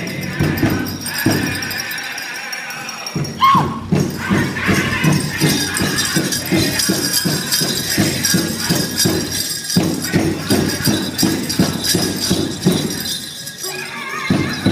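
Powwow drum beaten in a steady pulse under high-pitched group singing, with the jingling of dancers' bells. The drumbeat drops out briefly near the start and again near the end.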